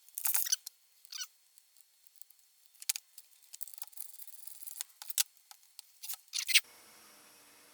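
Scattered clicks, taps and a few short scrapes from hands handling a small trimmer engine's parts, with the loudest scrapes just after the start and about six and a half seconds in.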